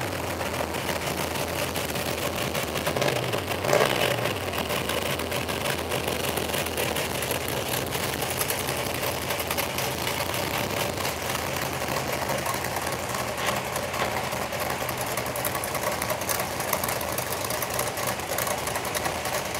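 Classic cars' engines running as the cars drive slowly past at low speed, with one louder pass about four seconds in.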